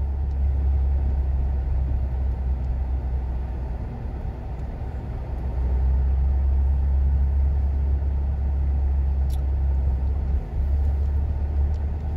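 Steady low rumble of a car driving slowly, road and engine noise heard from inside the cabin.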